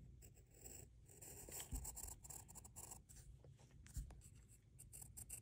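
Pencil lead scratching faintly across paper in short drawing strokes, with a couple of soft bumps of the hand on the paper.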